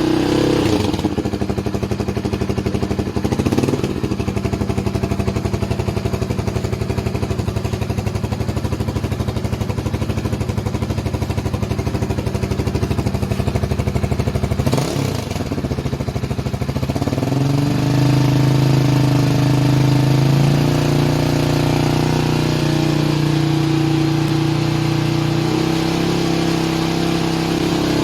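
RC250 motorcycle engine running through a Bullet Pipe aftermarket exhaust, idling steadily with a few short throttle blips, then held at higher revs that rise and fall gently over the last ten seconds.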